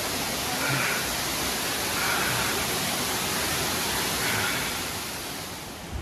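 Steady rushing hiss of a waterfall spilling into a rock pool, easing off in the last second.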